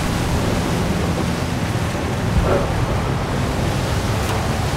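Steady storm wind and rough sea noise on the deck of a crab boat, with a constant low rumble underneath.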